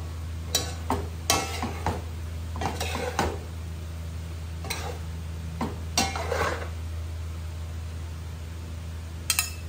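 Metal spatula and spoon scraping and knocking against a metal pot as stir-fried noodles are tossed, in a dozen or so short, irregular strokes. A steady low hum runs underneath.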